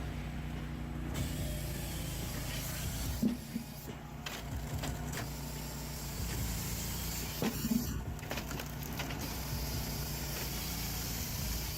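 Firewood processor running: a steady engine and hydraulic drone, with short knocks of wood about three seconds and about seven and a half seconds in.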